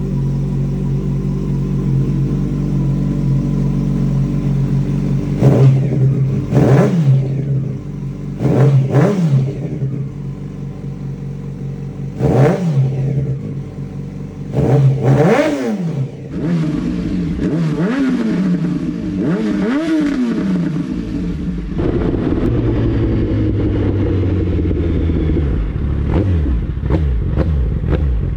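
Yamaha FZ1-N's inline-four engine through a GR Moto titanium slip-on exhaust, idling steadily and then revved in a series of sharp throttle blips that rise and fall quickly. Four big blips come first, then a run of smaller ones. About three-quarters of the way through it settles into a lower, steady running.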